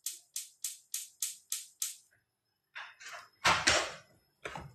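A quick run of about eight evenly spaced swishing strokes, about four a second, then after a short pause a loud rustle and knock from the phone being handled and moved, and a shorter one near the end.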